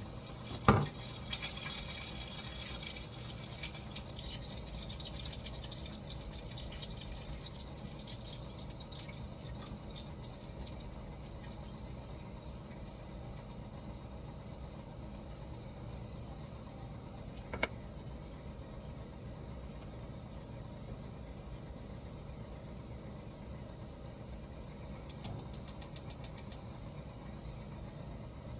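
Kitchen sounds over a steady low hum: water running briefly at the start with a sharp knock, a single clack midway, and a quick run of about ten clicks a second near the end.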